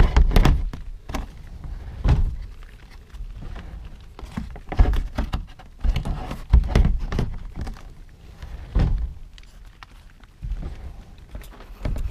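Rubbermaid Big Max resin shed door knocking against its plastic floor and frame in a series of irregular hollow thunks as it is worked into its pivot slot at the bottom.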